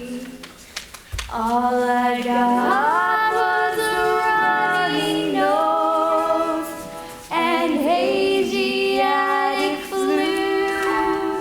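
A female voice singing a slow song, holding long notes with vibrato. She slides up into a note early on and breaks off briefly about two-thirds of the way through.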